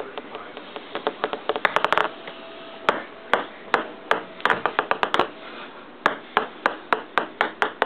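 Ping-pong ball bouncing and clicking on a hard tabletop as it is batted about. There are single sharp taps throughout, with quick runs of bounces about one and a half seconds in and again around four and a half seconds in.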